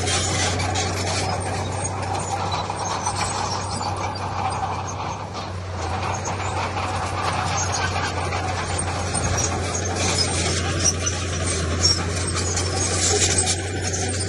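Heavy diesel earthmoving machinery (a bulldozer or dump truck) running steadily under load, with a constant low drone and irregular clatter.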